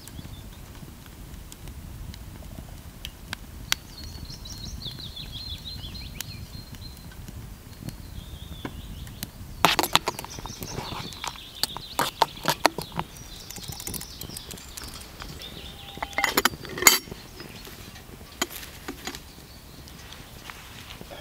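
Birds singing in short chirping trills, then a metal spoon clinking and scraping against a stainless steel cook pot while stirring coffee, in quick runs of sharp clinks, with a few louder metal clanks near the end.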